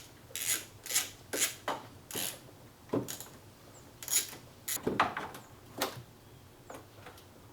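Hand ratchet with a 13 mm socket clicking in short, irregular strokes, loosening the bolts of a car's front bumper bracket.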